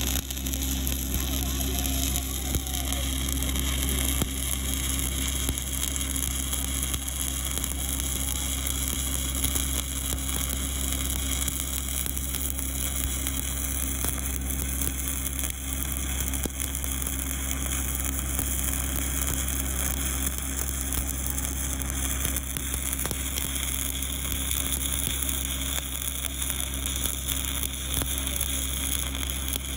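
Stick (SMAW) arc welding with a 7018 low-hydrogen rod: the arc crackles and sizzles steadily as the bead is run, over a low steady hum.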